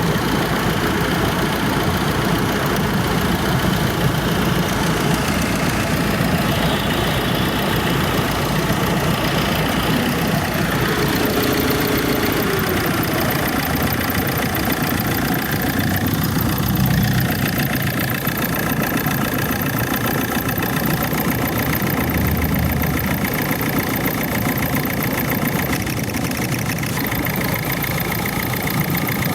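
A motor-driven machine running steadily with a loud, even hum and rattle.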